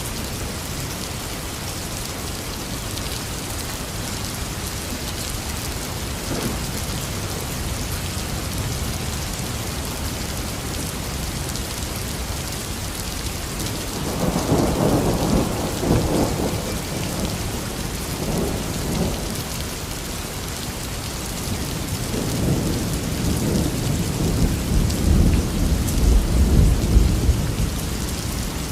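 Heavy rain falling steadily, with rolling thunder rumbles about halfway through and again near the end; the later rumble is the lowest and loudest.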